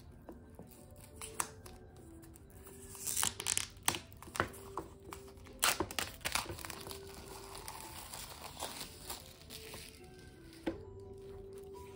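Paper and packaging being handled, crinkling and rustling, with several sharp clicks in the middle stretch, over soft background music with a gentle melody.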